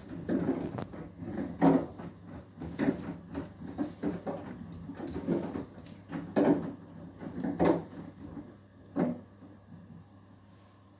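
Beko WTK104121W washing machine drum turning during the Eco 40 final rinse: wet laundry tumbling with repeated swishing thuds, about one a second, over a low steady hum. The thuds stop about nine seconds in as the drum halts.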